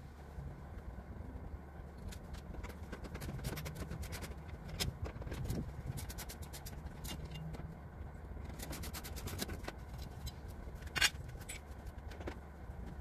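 Scattered light metallic clicks and clinks of hand work on the van's front end, with a quick run of clicks about nine seconds in and one sharper clank about eleven seconds in, over a steady low rumble.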